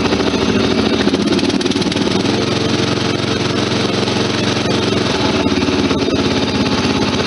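Riding lawn mower engine running steadily, its pitch shifting slightly about two seconds in and again around five seconds in.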